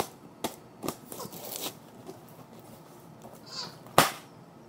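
Knife stabbing and slicing into a cardboard box: a few sharp knocks, a short scraping cut, and one loud knock near the end.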